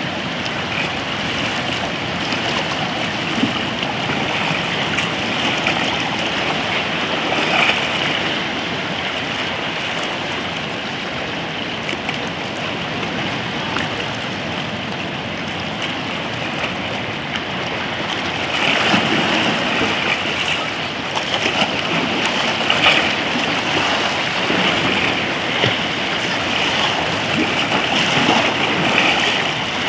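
Shallow seawater lapping and washing around rocks at the shore: a steady rush of water with small splashy swells, growing louder about two-thirds of the way through.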